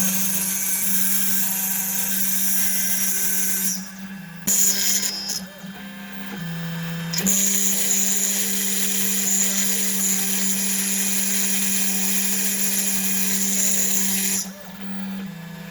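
Snapmaker 2.0 CNC module's spindle running steadily, its bit cutting into a board, with a high hiss over a steady hum. The hiss drops away briefly about four seconds in, again for a second or so around six seconds, and near the end.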